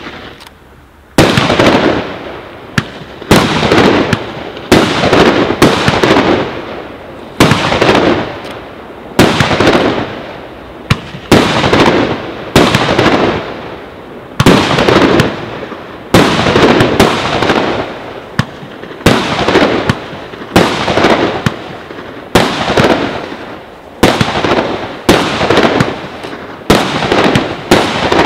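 Aerial fireworks bursting in quick succession, starting about a second in: a sharp bang roughly once a second, each followed by a rolling echo that dies away.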